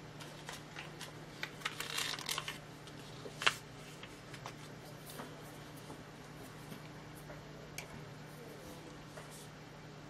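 Faint handling sounds of hands turning a small keychain figure on a palette and picking up and loading a paintbrush: scattered light clicks and rustles, thickest in the first two and a half seconds, with one sharper click about three and a half seconds in. A steady low hum runs underneath.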